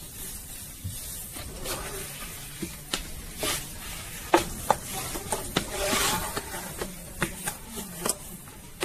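Long thin wooden rolling pin rolling and rubbing over flatbread dough on a wooden board, with light wooden knocks and clicks now and then.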